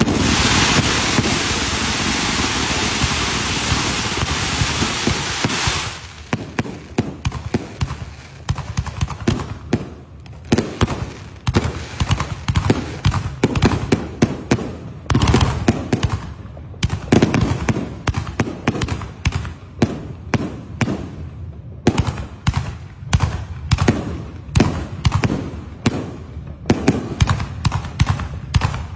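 Fireworks going off: a dense hissing crackle for about the first six seconds, then a run of sharp bangs and pops, several a second, from ground cakes and shells bursting overhead.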